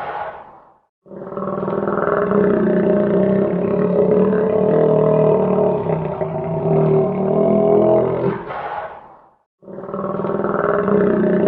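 Alligator bellowing sound effect: long, deep, rumbling bellows with a steady drone. One fades out within the first second, a second lasts about eight seconds and fades away, and a third begins near the end after a short silence.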